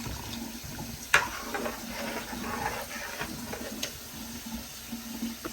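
Kitchen clatter of a utensil against a cooking pot: a sharp clink about a second in and a lighter one near four seconds, over a steady low hum.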